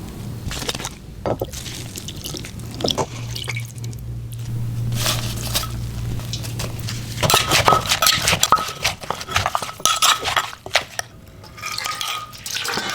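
Utensils clinking and scraping against plates and bowls during a meal, in scattered irregular clicks over a low steady hum.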